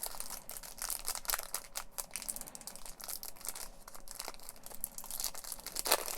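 Wrapper of a baseball card pack being torn open and crinkled by hand, a dense run of small crackles and rustles.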